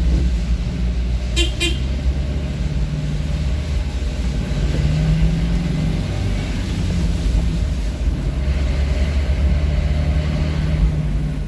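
A vehicle engine running steadily while under way, with two short horn beeps about a second and a half in.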